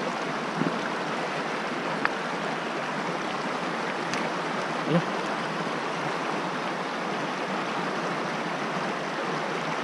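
Shallow creek water rushing steadily over rocks, with a few faint clicks and one short low sound about five seconds in.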